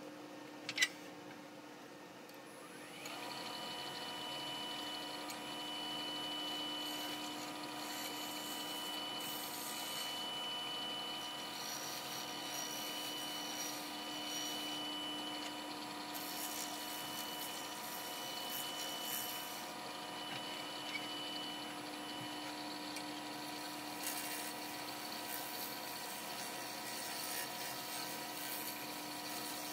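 Wood lathe starting up about three seconds in, then running steadily with a constant motor hum and whine while it spins a small black walnut bowl. A single sharp click comes just before, about a second in.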